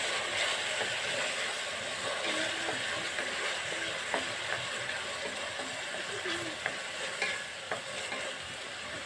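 Chopped onion frying in hot oil in a stainless steel kadai, sizzling steadily as a wooden spatula stirs it through the pan, with a few short knocks of the spatula in the second half.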